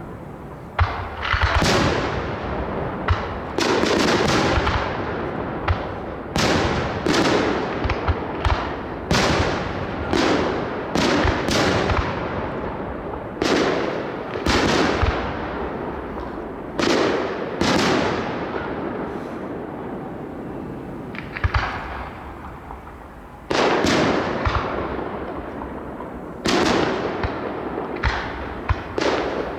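Aerial fireworks display: shells bursting in quick succession, sharp bangs each followed by a fading rumble. The bangs ease off for a few seconds past the middle, then resume with a loud burst.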